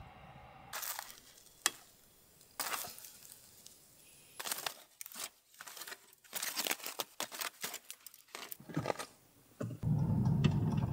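Aluminium foil crinkling and crackling in short irregular spurts as foil-wrapped roasted sweet potatoes are handled with gloved hands, with a louder low rumble near the end.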